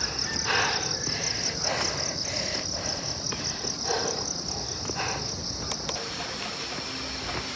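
Insects chirring in a steady, fast-pulsing high buzz that eases about six seconds in, with soft scuffs every half second or so from walking on the trail.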